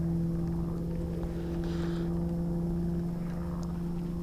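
A steady, even-pitched motor hum from a distant engine.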